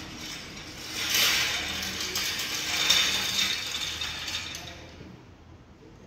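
Wheeled steel stand rattling and clattering as it is rolled across a concrete workshop floor, for about three and a half seconds before it dies away.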